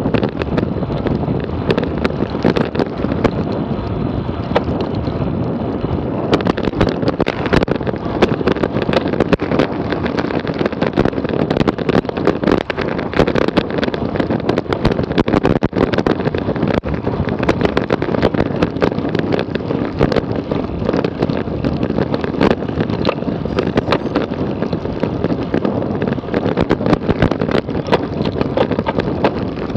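Wind rushing over the microphone of a camera on a road bike riding at speed, with tyre and road noise underneath and frequent small knocks and rattles.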